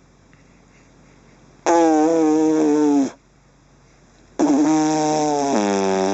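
Two long raspberries blown with the lips, each a loud buzzing note with a steady pitch, the first lasting about a second and a half and the second about two seconds.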